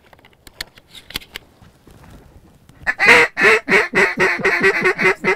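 Mallard duck call blown in a loud, fast run of quacks, starting about three seconds in with a longer first note and then short quacks about five a second; faint clicks before it.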